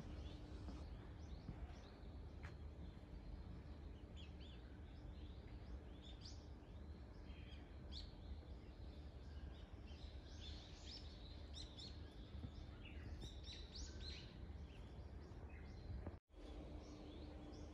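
Small birds chirping, many short high calls coming thickest through the middle and later part, over a steady low background rumble. The sound drops out completely for a moment near the end.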